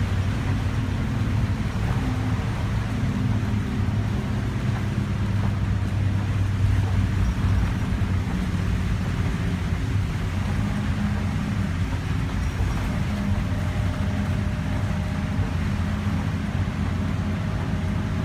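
City bus's diesel engine and its tyres on a wet road, heard from inside the cabin while under way: a steady low drone with a hiss of tyre spray over it.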